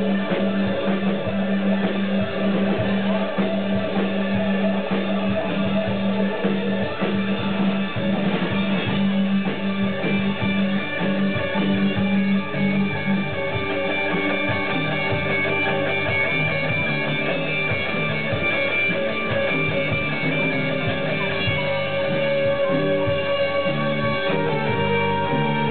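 Live rock band playing: electric guitars and bass guitar over a drum kit, continuous and loud, with the held notes changing about halfway through.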